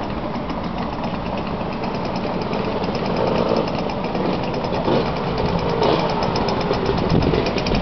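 Motor scooter engines running at idle: a steady, fast putter.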